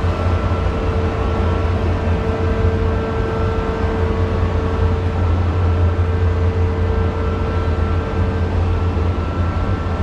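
Vekoma Boomerang roller coaster train being hauled slowly up a lift spike: a steady low mechanical hum from the lift drive with a faint steady whine over it, unbroken throughout.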